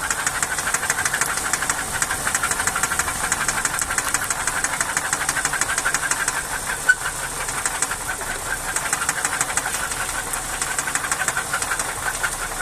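Nissan Cefiro engine idling with a rapid, even ticking knock, and one sharper click about seven seconds in. The knock could come from the camshafts at the top of the engine.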